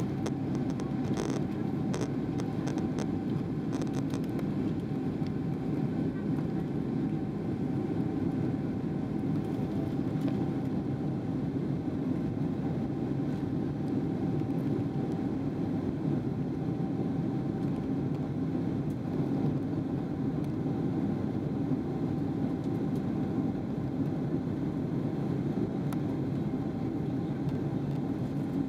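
Steady low rumble of a Boeing 777-300ER's GE90-115B engines and airflow, heard inside the passenger cabin during the climb after takeoff, with a faint steady hum above it. A few light clicks in the first few seconds.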